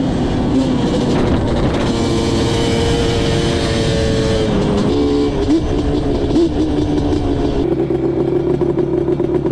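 Yamaha Banshee 350 quad's twin-cylinder two-stroke engine running under way, its pitch shifting with throttle changes around the middle, then holding a steady note near the end.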